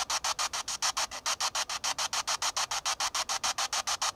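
Spirit box (SB7-type radio sweep device) scanning through radio stations, giving rapid, evenly spaced bursts of hissing static about eight times a second.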